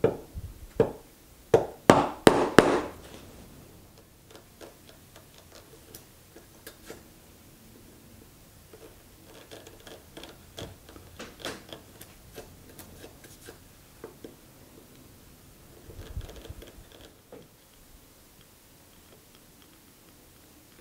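Mallet striking a chisel into a Douglas fir beam: several sharp knocks close together in the first three seconds. Then comes a long run of light ticks and taps, with one more knock about sixteen seconds in.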